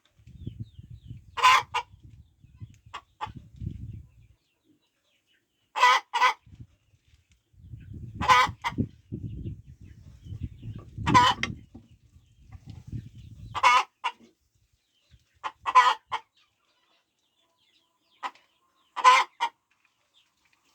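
Chicken clucking: seven short calls, each a quick double note, every two to three seconds. A low rumbling noise runs under the first four seconds and again through the middle.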